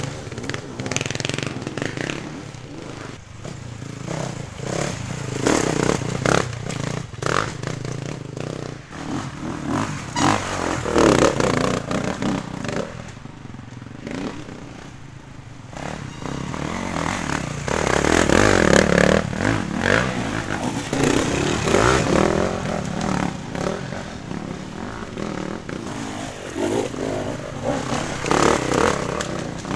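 Enduro dirt bike engines revving unevenly as riders climb a rocky trail, rising and falling with the throttle, loudest about two-thirds of the way in. Scattered knocks and clatter come from the bikes on rock.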